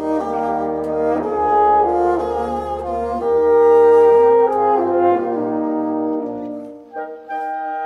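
Wind octet of paired oboes, clarinets, horns and bassoons playing a Classical-era minuet in sustained chords, with the horns prominent. The music swells to its loudest around the middle and briefly thins near the end before the next phrase comes in.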